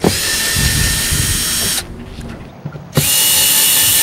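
Cordless drill-driver backing screws out of a plastic portlight's trim ring: the motor runs for almost two seconds, stops, then runs again from about three seconds in, each run with a steady whine.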